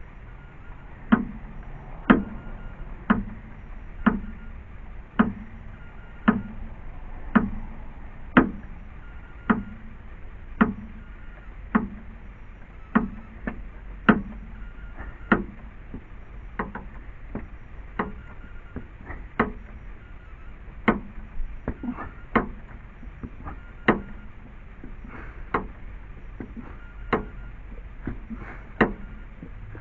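Car jack being pumped to lift the car, its handle making a sharp clack about once a second with a short low thud on each stroke.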